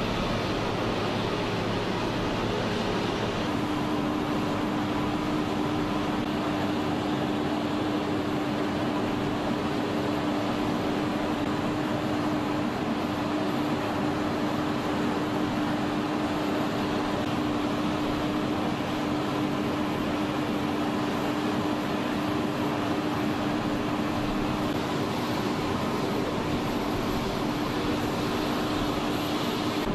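Steady engine noise of airfield machinery running, with a steady hum joining about three and a half seconds in and holding.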